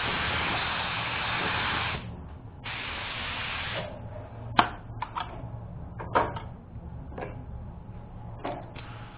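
Compressed-air paint spray gun hissing in two bursts, the first stopping about two seconds in and the second about a second long. Then a handful of sharp clicks and knocks, two of them louder.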